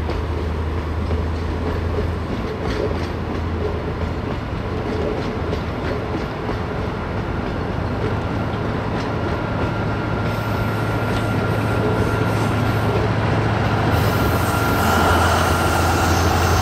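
Diesel train running past, its wheels clacking over the rail joints over a steady low engine hum. A thin, steady wheel squeal appears about ten seconds in and grows louder near the end.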